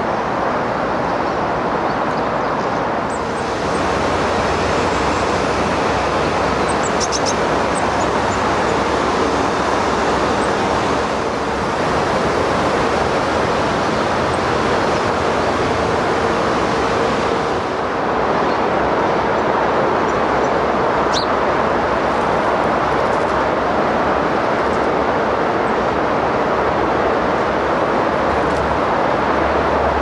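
Steady rushing outdoor background noise with a few faint, short, high chirps of small garden birds.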